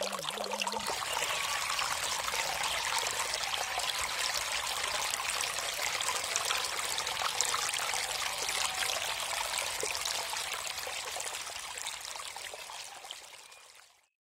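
Water trickling and splashing steadily in a small stream, fading out near the end.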